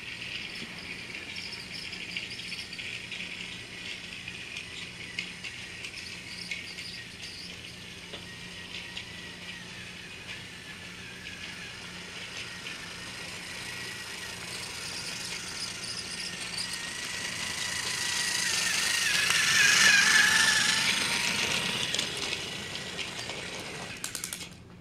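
Battery-powered toy Thomas the Tank Engine running on plastic track: a steady, high motor whine with its wheels rattling, growing louder to a peak about twenty seconds in as it passes close, then fading and cutting off just before the end.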